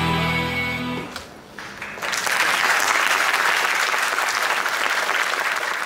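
A recorded song accompanying the dance ends about a second in; after a short pause an audience applauds steadily.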